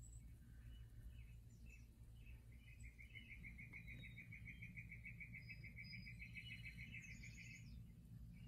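Faint birdsong from a cat TV bird video: scattered short chirps and one rapid, even trill of about eight notes a second, running for about five seconds from a couple of seconds in.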